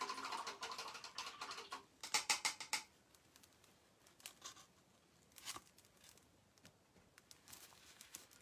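Hands rummaging through paint supplies on a table, faint rustling and clattering. A quick run of clicks comes about two seconds in, then a few scattered knocks.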